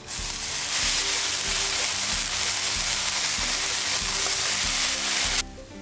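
Raw bacon strips sizzling as they are laid one by one on a very hot steel flat-top griddle, a Camp Chef FTG600. The sizzle grows louder about a second in as more bacon goes down, and it cuts off suddenly near the end.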